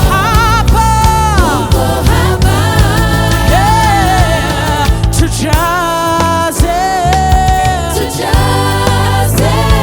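Gospel worship music: singing over a band with a steady bass.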